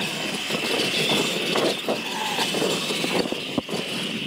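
R/C monster trucks racing over dirt: a steady high motor whine with scattered clatter and knocks from the trucks hitting the ground and jumps, the sharpest knocks a little past three seconds in.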